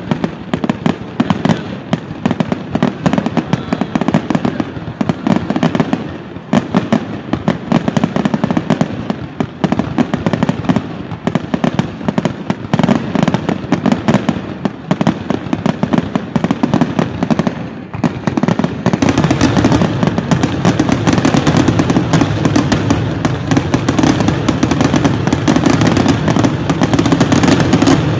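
Aerial fireworks display: rapid, overlapping bangs and crackles of shells bursting. About two-thirds of the way in, the bursts thicken into a near-continuous barrage.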